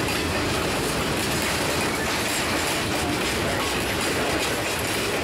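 Freight car wheels and trucks rolling past close by in a steady rumble, with clacks as the wheels cross a bolted rail joint.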